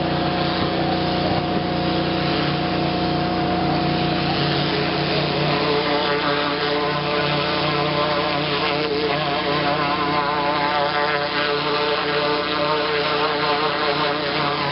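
Engine-driven pressure washer, rated at 4,500 psi and 6 gallons a minute, running steadily with a hiss over its drone. A wavering tone joins about six seconds in.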